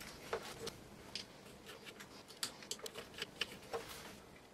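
Faint, irregular clicks and taps of small 3D-printed plastic gimbal parts, screws and a screwdriver being handled during hand assembly.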